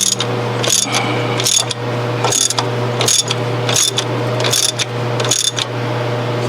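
Ratchet wrench being swung back and forth to run a cylinder head bolt down snug, its pawl clicking in short bursts about every three-quarters of a second. A steady low hum runs underneath.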